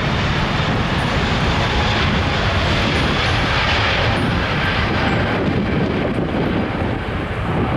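Jet engines of an Emirates Airbus A380 on the ground: a steady loud roar with a hissing edge, strongest about halfway through and easing a little near the end. Wind buffets the microphone underneath.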